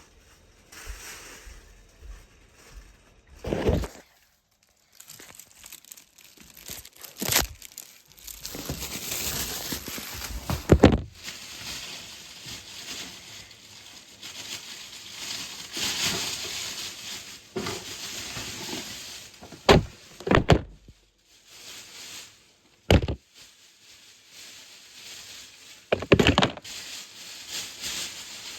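Handling noise: scattered sharp knocks and thumps, about seven over the stretch, with rustling and crinkling between them.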